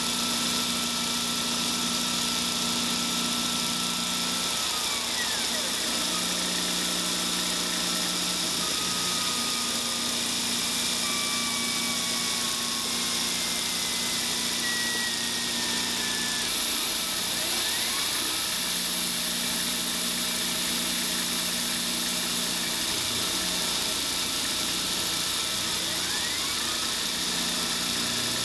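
CNC milling machine cutting brass plate with a small end mill: a steady high hiss from the spindle and cut, with a low hum that stops and restarts every few seconds and thin whining tones that glide up and down as the axes move.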